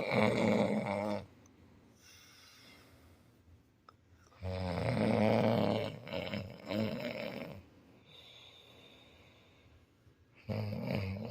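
A person snoring: three loud, rasping snores about five to six seconds apart, one on each breath, with quiet breathing in between.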